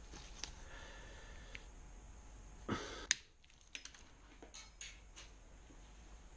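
Light, scattered metallic clicks and ticks of a steel pick and pliers working a circlip out of a Kawasaki KLR650 piston's gudgeon-pin bore. A short scrape is followed by a sharp click a little under three seconds in, then a few more taps.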